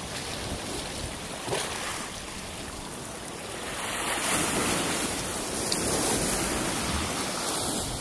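Black Sea surf washing and breaking against a concrete pier, a steady rushing wash that swells louder around the middle, with wind buffeting the microphone.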